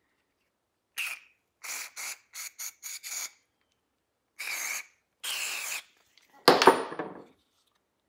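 Aerosol can of CRC heavy-duty silicone spray hissing through its red straw, first in a quick string of short squirts and then in two longer ones, as silicone lubricant is sprayed into rubber hose ends. About six and a half seconds in comes a louder knock and scrape.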